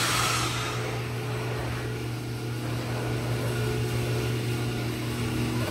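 Steady mechanical hum from a Ford Mustang GT just switched on: a constant low drone with a few steady higher tones above it.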